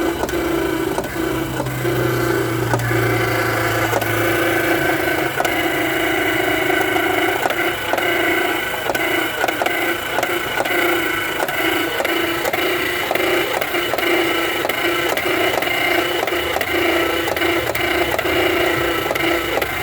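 A 2007 Subaru Outback's engine is running, with a steady whine and a rapid, irregular knocking rattle coming from the alternator. This is the knock and noise that the owner puts down to a faulty alternator.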